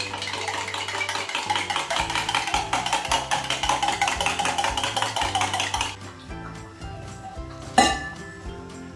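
Eggs beaten by hand in a steel tumbler: rapid, even metal clinking that stops about six seconds in, followed by one louder metal clank near the end. Background music plays underneath.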